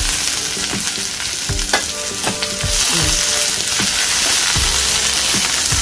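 Onion pieces sizzling in ghee in a non-stick frying pan, stirred with a steel spoon that knocks and scrapes against the pan every so often.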